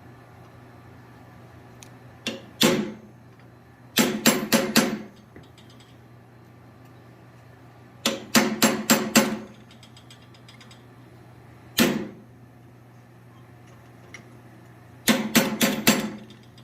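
A blacksmith's hammer striking steel on an anvil in short bursts of one to six blows a few seconds apart, each blow ringing briefly. A steady low hum runs underneath.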